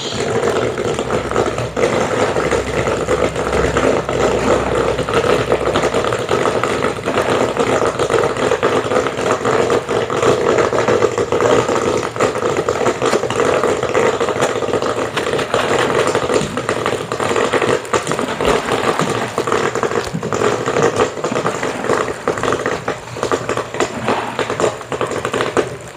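Gas-fired popcorn machine with a 12-volt stirring motor running: a steady hum with dense crackling throughout. Plastic popcorn packaging is rustled and handled close by.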